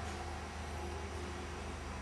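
Steady low hum with an even hiss and no distinct event: room tone.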